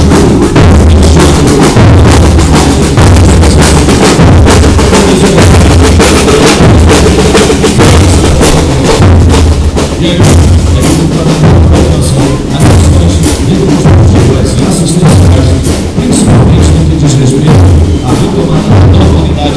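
Marching drum section playing a steady march cadence: bass drums beating a regular pulse with snare drums striking quickly between the beats.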